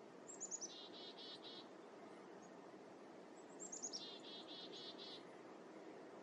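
A small songbird sings two short phrases about three seconds apart. Each begins with a few quick falling notes and ends in four or five rapid repeated notes, over a steady low background hiss.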